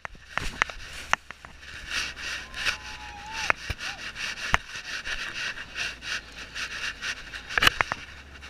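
A dog panting right at a body-mounted camera, with sniffing and a few sharp clicks and knocks from the mount.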